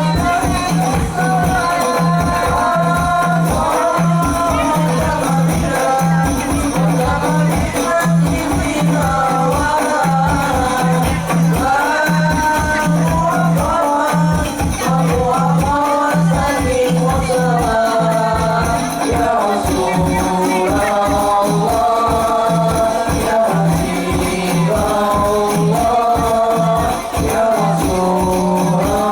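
Sholawat devotional music: voices sing a flowing melody over hand-beaten frame drums keeping a steady, dense rhythm.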